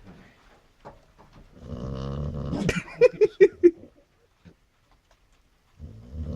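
Chow chow snoring in its sleep: one long drawn-out snore about a second and a half in, then four quick short pulses, and the next snore beginning near the end.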